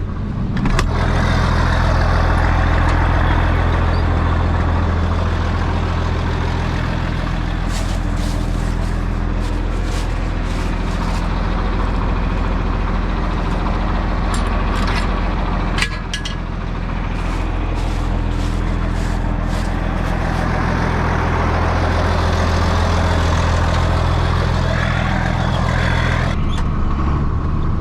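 A vehicle engine running steadily, a low droning hum. Its note shifts a little at the start and again near the end, with a brief click and dip about 16 seconds in.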